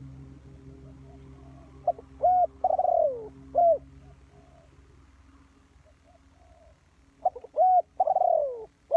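Spotted dove cooing in two phrases, each a few short coos around a longer note that falls in pitch, about two seconds in and again near the end. A low hum fades away over the first few seconds.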